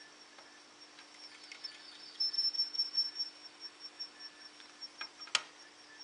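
Floppy disk drive in an Amiga 500 working at a disk, with a run of rapid ticking from its head from about two seconds in and a sharp click near the end, over a steady hum and a faint high whine.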